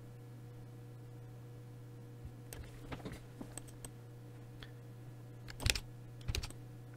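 Computer keyboard and mouse clicks: a few light clicks, then two louder key presses near the end, a Shift and spacebar press, over a faint steady low hum.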